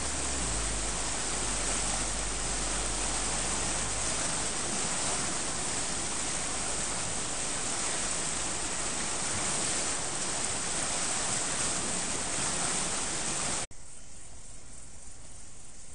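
Swollen creek in flood, fast floodwater rushing in a steady loud roar of moving water. Near the end it cuts off suddenly to a much quieter hiss.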